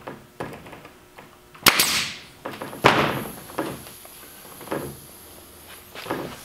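Pneumatic nail gun firing fasteners through a thin plywood panel into a wooden trailer frame: two sharp shots a little over a second apart, with lighter knocks around them.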